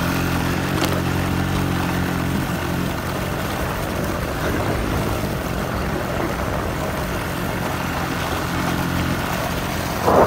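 A small engine running steadily. Its low hum weakens for a few seconds in the middle and comes back strongly near the end, over a haze of wind or road noise.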